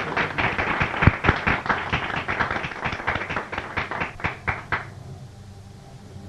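Audience applauding: a dense run of hand claps that thins out and stops about five seconds in.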